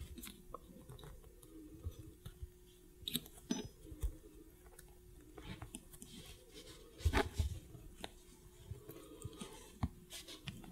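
Fingers handling a wire-wrapped bezel around a glass stone: faint, scattered clicks and rustles of the metal wire loops being pressed over the stone, with a small cluster of louder knocks about seven seconds in.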